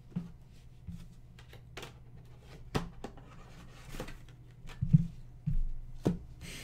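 Trading card and paper envelopes handled on a desk mat: scattered taps, clicks and paper rustles, about one a second, over a steady low hum.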